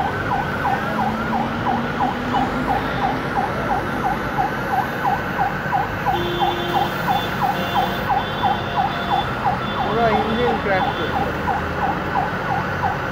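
Electronic siren or alarm sounding in a fast, repeating up-and-down sweep, about three cycles a second, over the steady noise of a crowd and traffic.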